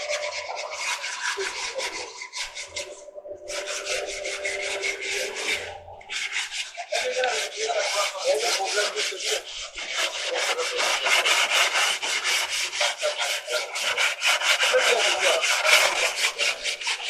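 Hand sanding of body filler on a car's sheet-metal firewall: rapid rubbing strokes, several a second, pausing briefly twice in the first six seconds.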